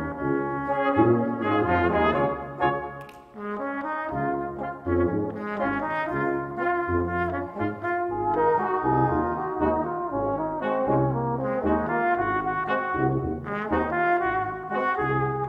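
Brass quintet of cornets, flugelhorn, tenor horn, trombone and tuba playing together, the tuba pulsing a bass line under sustained upper parts. The playing drops away briefly about three seconds in, then carries on.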